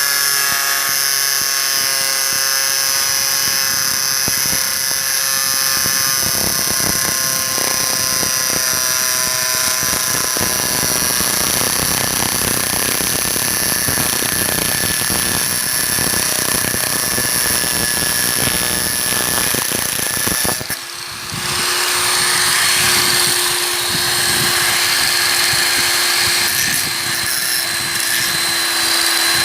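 SIM-100B electric angle grinder running with a steady high-pitched motor whine. About two-thirds of the way through, the sound dips briefly, then carries on with a lower tone and more noise.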